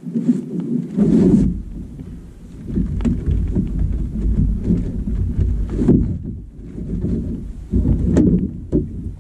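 Wind buffeting the microphone in uneven low rumbles, with scattered knocks and thumps.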